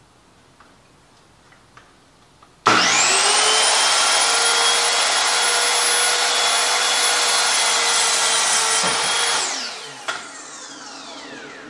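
HART miter saw starting with a sudden high whine a few seconds in and running steadily as it cuts through a wooden board, then winding down with a falling whine near the end. A click is heard as it spins down.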